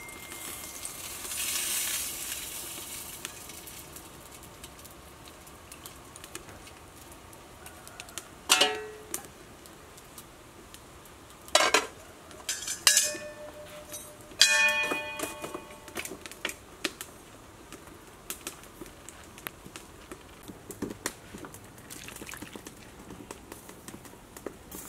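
A soft hiss as fried fish pieces go into a pot of soup broth. Then several sharp metal clanks from the stainless steel pot and its lid, the loudest about fourteen seconds in, with a short ring.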